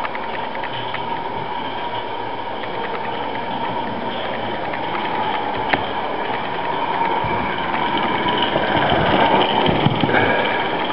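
Roundhouse Darj model locomotive running on test round the track: a steady mechanical running sound with rapid rhythmic clicking. It grows louder near the end as the loco passes close by.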